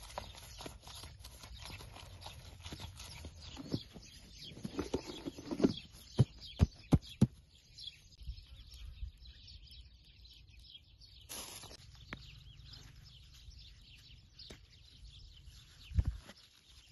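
Gloved hands kneading and patting a ball of yeast dough in a plastic bowl, with soft knocks and plastic-glove rustles. About six seconds in, four sharp clicks a third of a second apart as a plastic lid is pressed onto the bowl. Near the end, a low thump as the dough is handled again.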